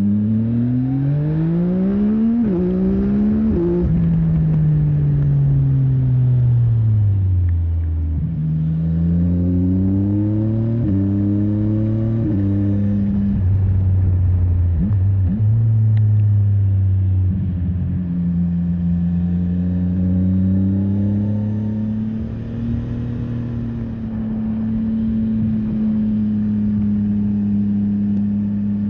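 CFMOTO 675NK's inline three-cylinder engine pulling hard with two quick upshifts in the first few seconds, then winding down as the bike slows. It accelerates again through two more upshifts and settles into a steady cruise for the last third.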